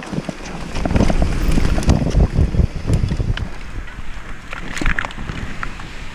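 Specialized Kenevo e-mountain bike riding fast downhill over rough forest singletrack: wind rushing over the onboard action camera's microphone, with tyre rumble and a stream of rattles and knocks from the bike over roots and rocks, heaviest in the first half.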